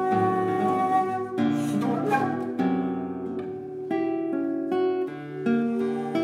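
Alto flute and classical guitar playing together: the flute holds long notes while the guitar plucks a series of chords, a new one about every second.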